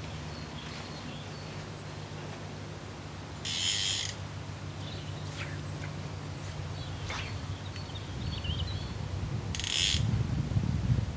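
Small birds chirping at intervals, with one short warbling call, over a steady low hum that grows louder near the end. Twice, about 3.5 s and 9.6 s in, a short rasping rattle of rapid clicks stands out above them.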